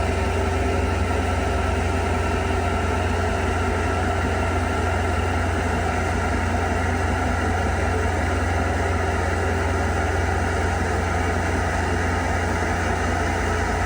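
Bobcat S76 skid steer's diesel engine running at a steady, even speed, a constant low drone with steady tones above it, as the machine works with its snowblower attachment.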